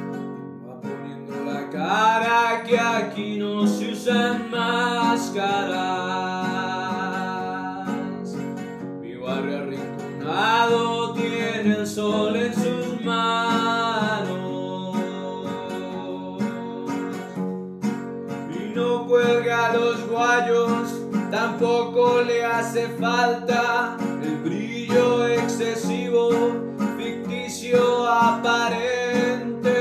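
Man singing to his own bandola accompaniment, the small pear-shaped Colombian plucked-string instrument strummed and picked continuously. The voice comes in three phrases with short instrumental gaps between them.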